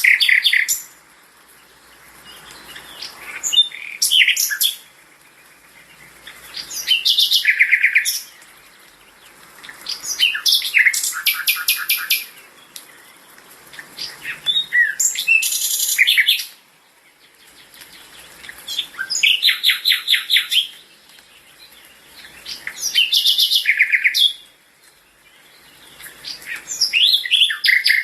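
A songbird singing the same kind of short phrase over and over, about once every four seconds, each phrase a quick run of rapidly repeated high notes.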